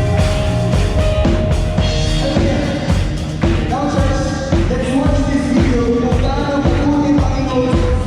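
Rock-style worship music with a full band: drum kit and bass under a sung melody, playing steadily and loud.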